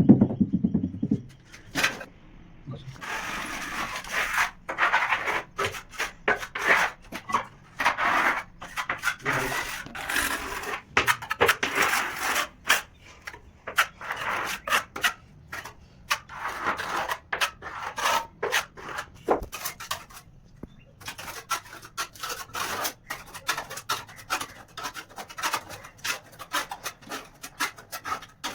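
Mason's trowel scraping and spreading cement mortar or tile adhesive in short, irregular strokes, with scattered sharp clicks and knocks.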